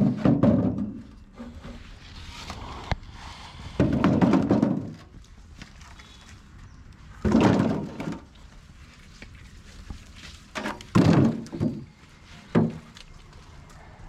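Whole husked coconuts thudding as they are dropped into a metal wheelbarrow and gathered from the ground: about six dull thuds at irregular intervals, the loudest right at the start.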